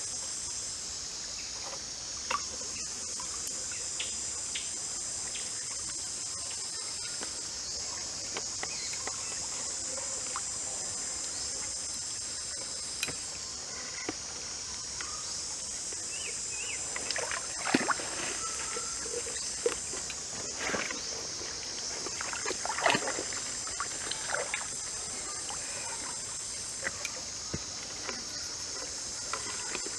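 A steady high-pitched insect chorus fills the background. Over it come scattered small clicks and wet, squelching handling sounds as raw marinated chicken is tied up with cord, busiest in the second half.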